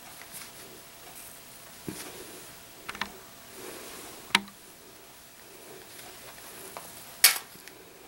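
An apple being split apart by hand: a few small crisp cracks as the flesh starts to give, then one loud sharp crack near the end as it breaks into halves.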